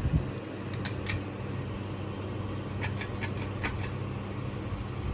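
Hunter Coastal Breeze ceiling fan running with a steady low motor hum, with a few light clicks about a second in and a quick run of clicks around three seconds in.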